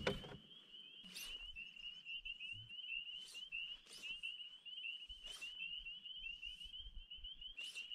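Faint, steady chorus of short high chirps from calling animals, several a second without a break, with a few brief sharp clicks several seconds apart.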